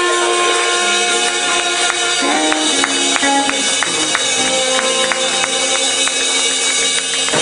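Live blues band playing with electric guitars, electric bass, saxophone and drum kit, holding long sustained notes over a constant shimmer of cymbals and a run of quick, even percussion ticks.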